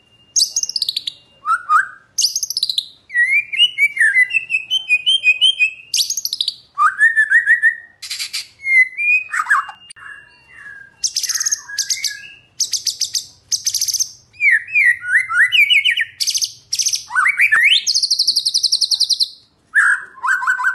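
White-rumped shama singing a varied, continuous song of loud whistled phrases and sweeping notes, broken by rapid buzzy trills, the longest about halfway through and again near the end.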